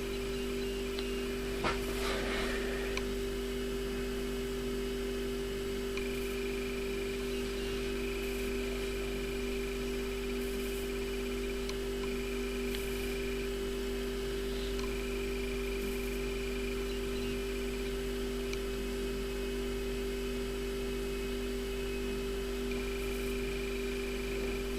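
Steady electrical hum made of two constant tones, with a brief crackle about two seconds in.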